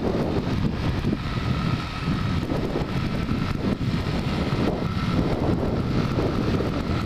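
1989 Yamaha Moto 4 250 ATV's single-cylinder four-stroke engine running steadily while riding, with heavy wind buffeting on the camera microphone.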